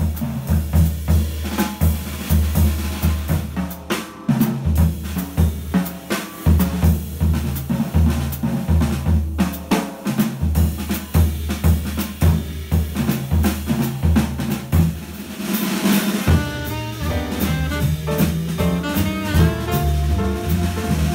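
Jazz drum kit solo on snare, bass drum, toms and cymbals, with busy, uneven strokes. About sixteen seconds in, the band comes back in with double bass and saxophone playing the tune.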